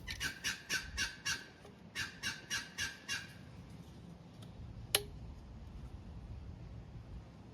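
A bird calling in two quick runs of repeated notes, about three or four a second, then a single sharp click about five seconds in.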